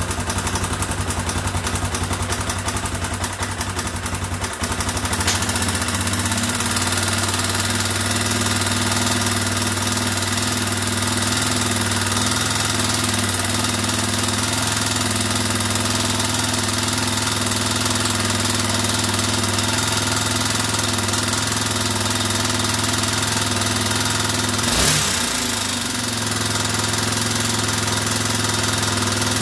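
Yamaha Raptor 350's air-cooled single-cylinder four-stroke engine idling with a top-end noise. For the first few seconds it runs with a rapid, choppy clatter, then settles into a steadier idle, with one brief surge near the end.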